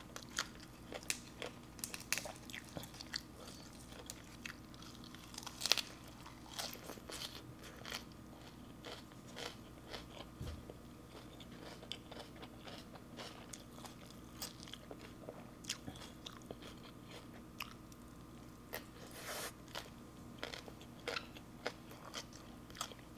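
Close-up eating sounds: a person biting and chewing fresh leafy greens and crunchy shredded green papaya salad, with many short crisp crunches scattered throughout, the loudest about six seconds in.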